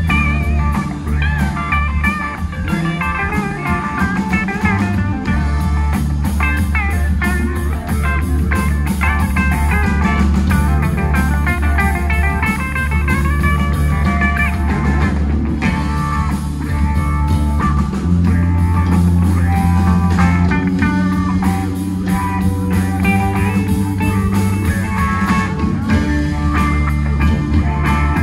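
Rock band playing a blues-tinged number: guitar lines over sustained bass notes and a drum kit, the bass moving to a new note about two-thirds of the way through.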